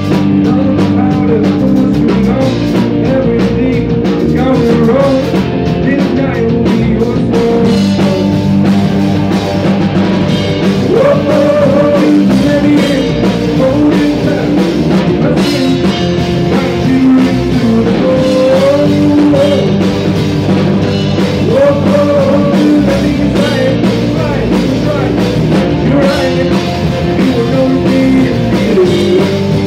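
Rock band playing live: a Pearl drum kit, electric bass and electric guitar together in a loud, steady groove.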